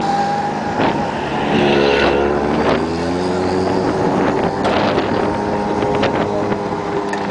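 Street traffic: a motor vehicle's engine hum that rises in pitch about a second and a half in and then holds steady, over a steady traffic noise, with a few short clicks and knocks.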